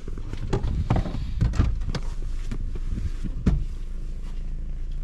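Idling car engine heard from inside the Toyota's cabin as a steady low hum, with several sharp clicks and knocks as the front passenger door is opened.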